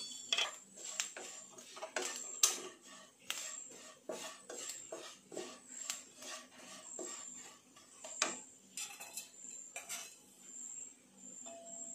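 Wooden spatula scraping and knocking against a non-stick pan, stirring grated coconut mixed with chilli powder, with irregular clicks about once or twice a second.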